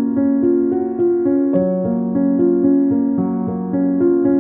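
Background piano music: a slow melody over held notes.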